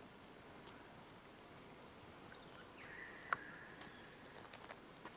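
Faint bush ambience: a quiet steady hiss with a few short, high bird chirps, and a brief whistle-like note about three seconds in with a single sharp click in it.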